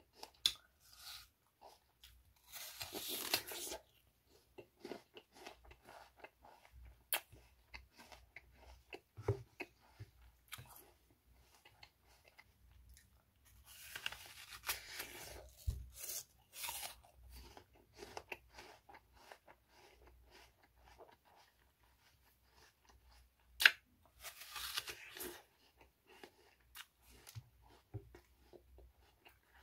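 A raw apple being bitten and chewed. Three bouts of loud crunching come about ten seconds apart, with quieter chewing clicks between them.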